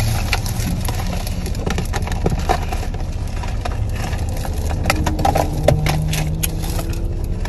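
Cardboard takeout chicken box and paper bag being handled, with repeated short crackles and clicks, over the steady low rumble of a car cabin.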